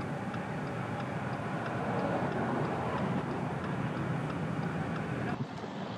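Steady rushing noise, like a vehicle on the move, changing abruptly near the end.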